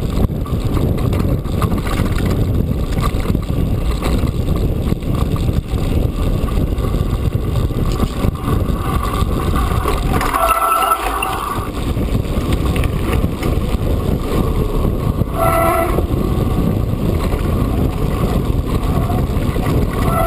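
Heavy wind buffeting and rumble on a GoPro's microphone while riding a mountain bike over grass and a stony track. The rumble drops away briefly about halfway through as the bike slows at a gate, and a couple of short high squeals come about halfway and again a few seconds later.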